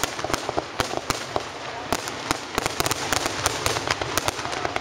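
Fireworks display: aerial shells bursting in a rapid, irregular string of sharp bangs and crackles, densest about two to three and a half seconds in.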